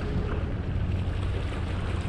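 Wind buffeting the microphone, with a steady rumble, over sea water washing against the jetty's rocks.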